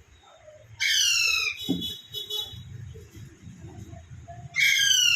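Pet parrot giving two loud harsh screeches, each under a second and sliding down in pitch, about four seconds apart, with a short rapid buzzy chatter after the first.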